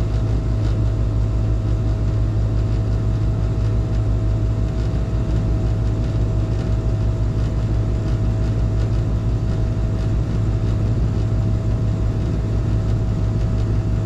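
R22 heat pump outdoor unit running just out of defrost, its compressor giving a loud, steady hum with a constant thin higher tone above it.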